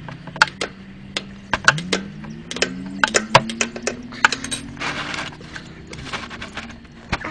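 Hand tools clinking and clicking against metal as the oil filter is worked loose on a motorcycle engine: many sharp irregular clicks, with a faint low hum that rises slowly in pitch behind them.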